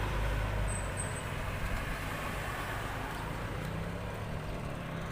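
A motor vehicle's engine running close by, fading about a second in, leaving steady street noise with a faint engine hum.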